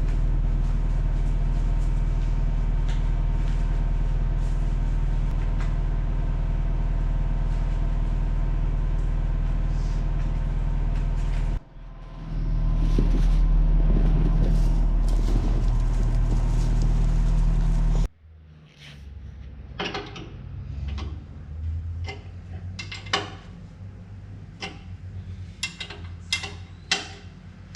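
Steady drone of potato-handling machinery running: the grader, conveyors and elevator. It breaks off abruptly twice, about 12 and 18 seconds in. The last part is much quieter, with scattered clicks and knocks.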